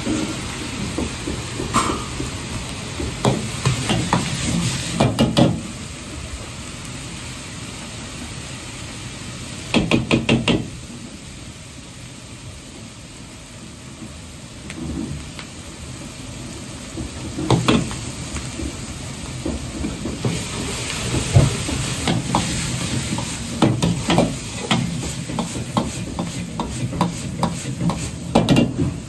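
Ground pork sizzling in a large carbon-steel wok over a running gas wok burner, with a metal ladle clanking and scraping against the wok. A quick run of clanks comes about ten seconds in, a quieter stretch follows, and the clanks come thick and fast in the last several seconds as the meat is tossed.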